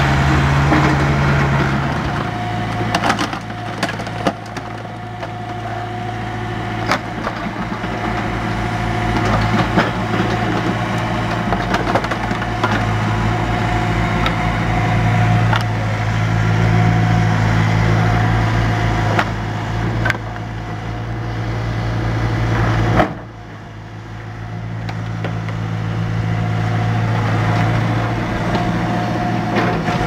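Komatsu mini excavator's diesel engine running steadily while its grapple crunches and cracks through piled wooden and household debris, with scattered sharp snaps and clatters. About three-quarters of the way through the sound drops abruptly, then builds back up.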